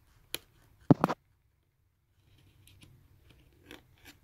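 Plastic clicks and snaps as the HP ZBook 14u G4 keyboard is pried up from its latch clips with a thin pry tool: one click, then a loud double snap about a second in, and a few fainter clicks near the end.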